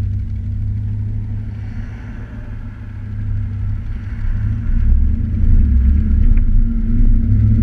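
Audi RS4 exhaust with the precats and resonator deleted, a low rumble as the car drives, growing louder about five seconds in.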